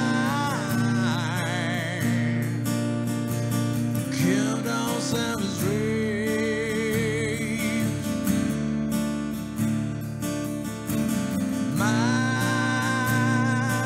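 A man singing, with long held notes that waver in vibrato, to his own strummed acoustic guitar.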